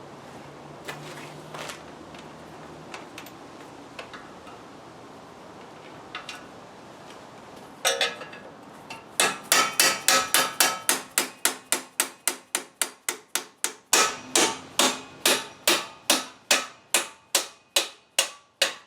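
Hammer blows on the rear axle of a Harley-Davidson Road King, driving it out of the swingarm to free the wheel. A few light taps and clicks come first; then, from about halfway, there is a fast, even run of sharp strikes, about three a second, each ringing briefly.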